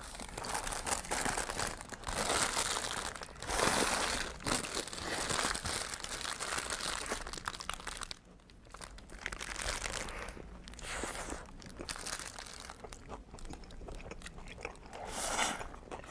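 Paper burger wrapper crinkling and rustling in the hands in irregular bursts as a tall stacked burger is wrapped up to be eaten.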